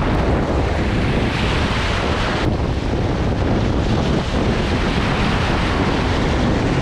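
Ocean surf washing and breaking over the rocks of a jetty in rough water, a steady rush of whitewater, with wind buffeting the microphone.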